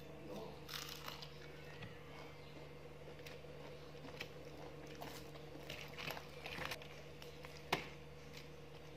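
Faint crunching and chewing of crispy deep-fried chicken, with small crackles as the breaded pieces are bitten and pulled apart by hand, and one sharper crack near the end. A steady low hum runs underneath.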